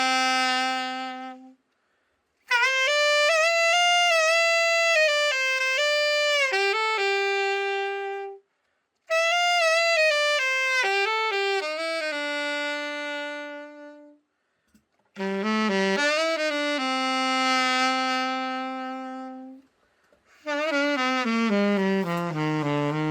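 Yamaha YAS-62 alto saxophone played solo after a full overhaul. A single melodic line runs in phrases of several seconds, each separated by a brief pause for breath, and ends with a falling run of notes near the end.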